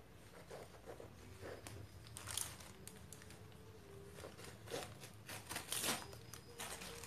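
Paper wrapping of a parcel being cut into and torn open by hand: a run of short scratchy tearing and crinkling strokes, loudest about two and a half seconds in and again near six seconds.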